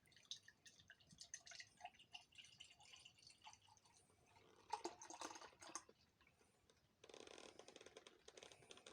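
Faint small clicks and handling, then a beer can cracking open about halfway through. Near the end, beer pours from the 355 ml can into a glass with a steady hiss.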